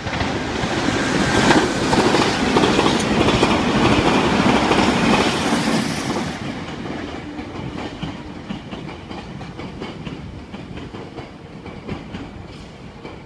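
Meitetsu 6800-series and 6500-series electric train passing at speed, its wheels clattering over the rail joints. Loud for about six seconds, then fading as the train draws away.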